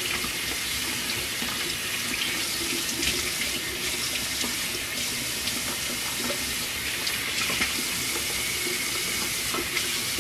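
Bathroom sink tap running steadily, water splashing into the basin as hands are washed under it.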